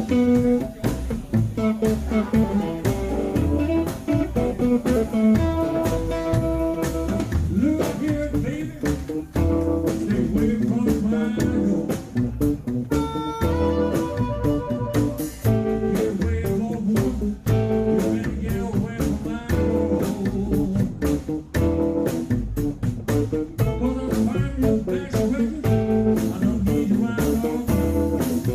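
Live blues band playing: a harmonica leads over acoustic guitar, upright double bass and drums, with the singer's voice coming in near the end.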